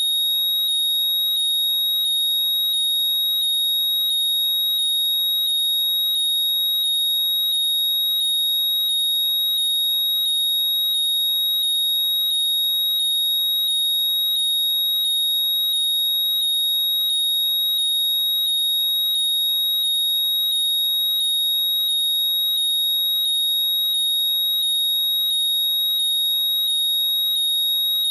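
Apple AirPods Find My locating sound: a loud, steady high-pitched tone with short rising chirps repeating about one and a half times a second.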